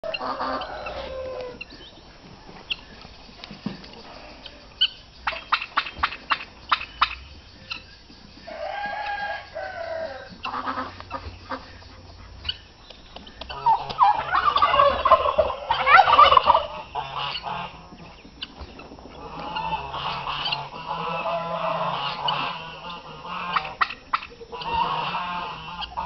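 Shamo gamecock crowing once, with a wing-flap, about fourteen seconds in; this is the loudest sound. Shorter calls from other fowl come before and after it, and a quick run of sharp clicks comes about five to seven seconds in.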